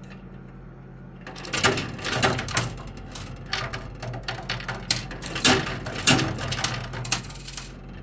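10-peso coins clinking and clattering inside a coin-pusher arcade machine as coins drop and the pusher shoves the pile, a dense run of irregular clicks starting a little over a second in. A steady low hum from the machine runs underneath.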